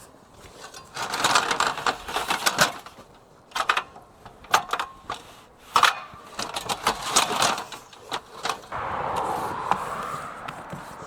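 Irregular taps, knocks and scraping from hands-on building work, ending in a steady rasping for the last two seconds or so.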